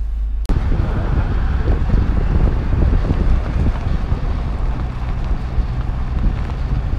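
Heavy wind buffeting the microphone over the rumble of a vehicle travelling at road speed, starting abruptly about half a second in.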